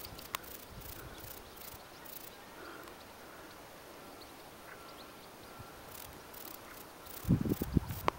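Quiet outdoor background hiss with faint scattered ticks, then a cluster of low bumps and rumbles on the microphone about seven seconds in, as the handheld camera is moved.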